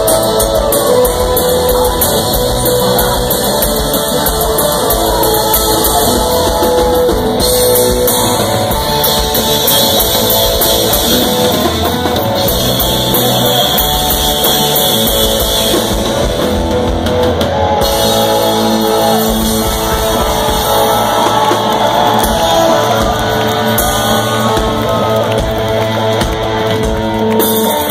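Live Celtic punk band playing a song at full volume: distorted electric guitar, a drum kit keeping a steady beat, and a button accordion.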